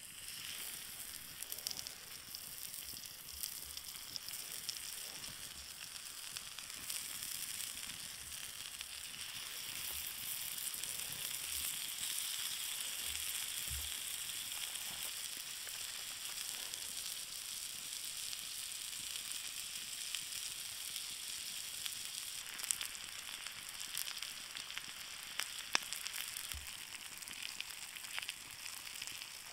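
Slices of rind-on pork frying in their fat on a hot flat stone over a campfire: a steady sizzle, with a few sharp pops.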